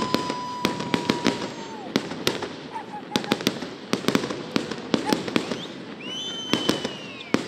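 Fireworks display: a rapid, irregular run of bangs and crackles from bursting aerial shells. A long steady whistle runs through the first two seconds and falls away at the end, and a higher whistle sounds near the end.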